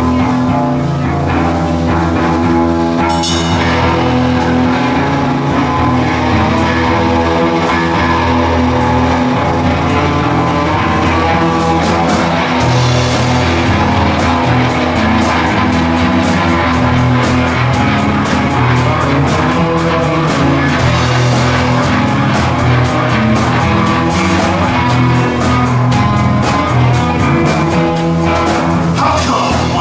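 A live rock band playing the instrumental opening of a song on guitar and drum kit, with a steady cymbal beat filling in from about halfway.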